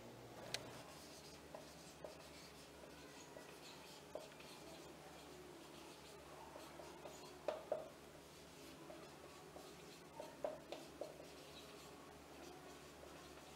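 Faint squeak and rub of a dry-erase marker writing letters on a whiteboard, in short, irregular strokes, a few of them a little louder.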